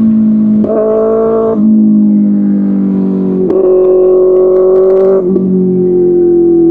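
Kawasaki ZX-6R inline-four engine running through an Arrow Pro Race exhaust. The throttle opens in two short spells, about a second in and again midway, and the note drops back after each. Near the end the revs slowly fall.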